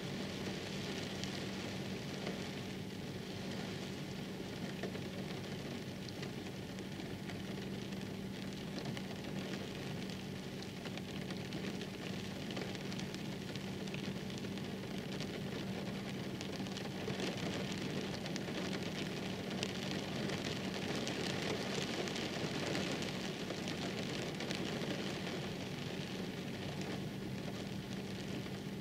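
Steady rain falling, with a constant low hum underneath.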